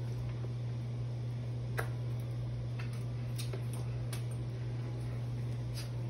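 Scattered light clicks and taps from a baby and a French bulldog handling a walker and a cardboard box, the sharpest about two seconds in and a few more close together a little later, over a steady low hum.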